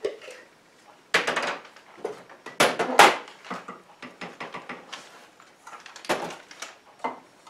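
Glass jars being handled on a table: a lid twisted off, dried herbs tipped out, and jars knocked and set down in a series of clunks and clinks, the loudest about three seconds in.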